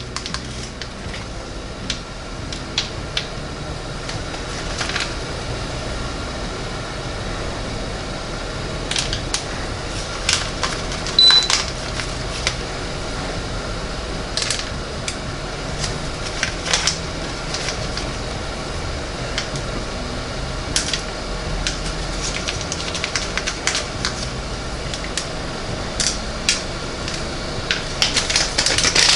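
Scattered light clicks and crinkles as chopped pecans are shaken from a foil packet and sprinkled by hand onto cookie dough on baking pans, over a steady fan whir from the preheating countertop convection oven.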